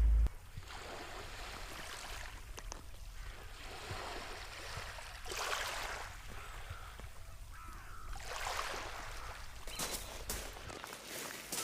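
Gentle waves lapping on the shore, swelling and easing several times, with faint bird calls.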